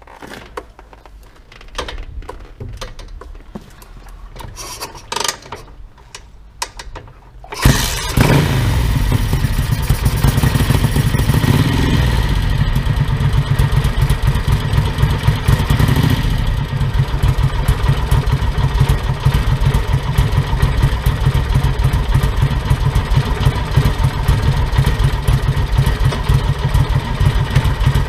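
Ducati 900SS bevel's air-cooled 90-degree V-twin started up: a few clicks and knocks, then the engine fires about eight seconds in and settles into a steady idle through Conti exhausts.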